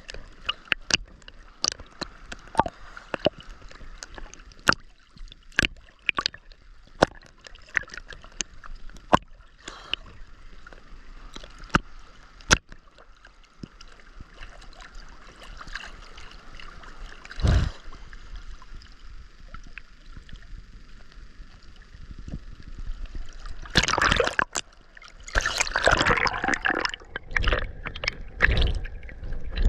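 Seawater sloshing and gurgling with many sharp pops and clicks, and heavier splashing in the last few seconds.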